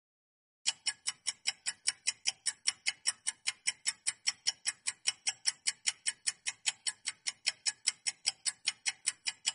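Clock-ticking sound effect running with a quiz countdown timer: sharp, even ticks about four a second, starting about half a second in.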